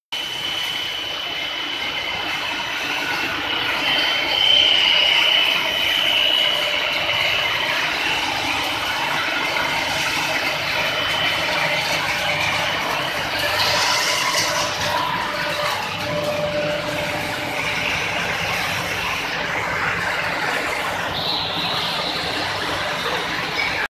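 Rubber masterbatch compounding machine running: its large electric drive motor, gearbox and processing line make a steady mechanical running noise, with a thin high whine through the first half.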